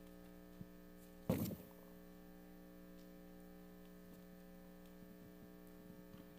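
Quiet room tone dominated by a steady electrical mains hum of several even tones, broken about a second in by one short, louder noise.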